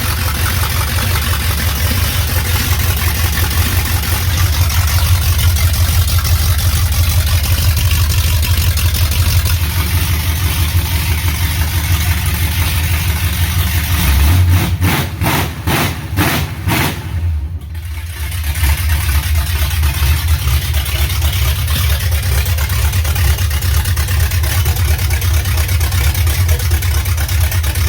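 Ford 351 Windsor V8 running loud and steady on open Hooker long-tube headers, the exhaust leaving straight from the header collectors, just fired up after the header install. About halfway through the sound wavers and dips for a few seconds, then settles back to the steady run.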